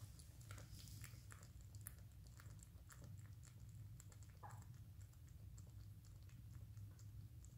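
Rabbit chewing leafy greens and herb stems: faint, quick crunching clicks over a steady low hum.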